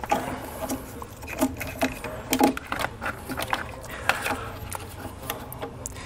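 Irregular small clicks, taps and rustles of a wiring harness and plastic parts being handled around a car battery as the wire is routed into place.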